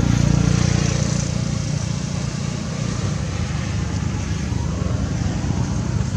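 A motor vehicle's engine running close by, a steady low rumble with no clear change.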